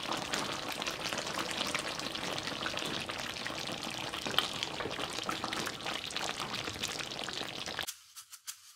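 Chicken caldereta, a thick tomato-based stew, simmering in a pan: a steady bubbling sizzle full of small pops. Near the end it cuts off and a light shaker rhythm begins.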